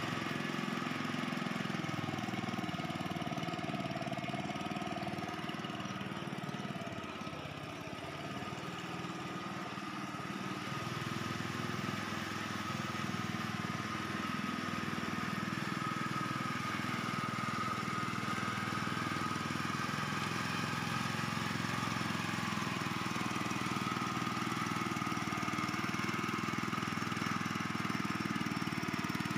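Small engine of a walk-behind paddy tiller (hydrotiller) running steadily under load as it churns through flooded paddy mud, dipping a little in level for a few seconds about a quarter of the way in.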